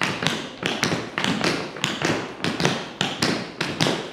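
Tap shoes striking the floor in a steady swing rhythm, about three to four sharp taps a second in uneven long-short pairs.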